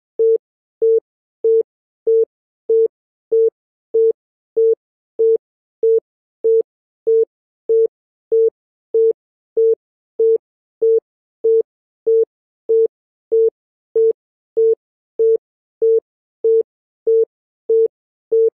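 East German (DDR) telephone busy tone, which also served as the congestion tone: short beeps at a single steady pitch, repeating evenly about three times every two seconds. It signals that the called line is engaged or that the network is congested.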